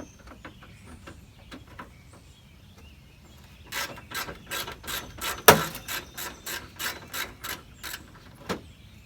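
Hand ratchet with a 10 mm socket loosening a bolt: a few faint clicks, then from about four seconds in a run of sharp ratcheting clicks, about three a second, the loudest a little past halfway.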